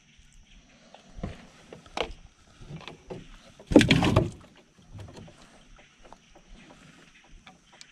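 Small knocks of handling in a small boat, then, about four seconds in, one loud splash lasting under a second as a bluegill bream is let go into the water.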